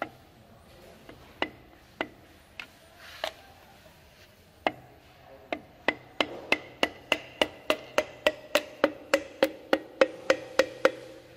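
Piston being tapped down through a steel ring compressor into a cylinder bore with the end of a hammer handle: sharp taps with a short metallic ring. A few come spaced out at first, then a steady run of about three a second from about six seconds in.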